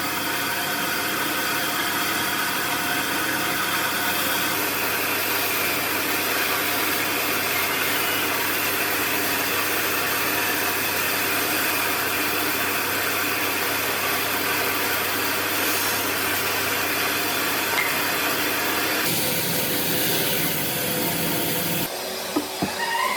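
A power tool running steadily on wood, its motor holding an even pitch; the sound changes about three quarters of the way through, and a few knocks follow near the end.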